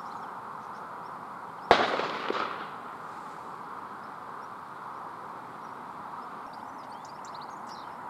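A single hunter's gunshot, sharp and loud, about two seconds in, with an echo coming back about half a second later and fading out.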